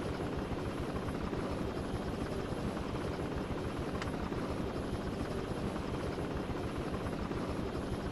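Helicopter rotor and engine noise, steady, with a fast low chop.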